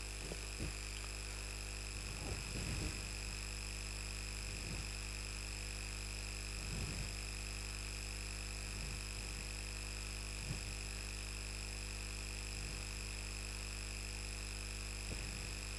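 Steady electrical hum with thin high whines, under faint short squeaks and scrapes of a marker drawing lines on a whiteboard every second or two.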